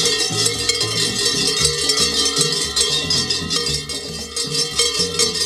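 A kurent's large cowbells, hung from the chain belt around his waist, clanging rapidly and continuously as he jumps and dances, the bells ringing on over one another.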